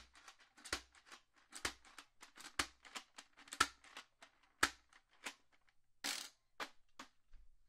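Plastic Nerf dart blaster being handled and worked: a sharp plastic clack about once a second with lighter clicks between, then a short rasp about six seconds in and a few last clicks.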